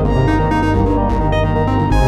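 A Samsung Galaxy stock ringtone playing: an electronic synthesizer tune with strong bass notes.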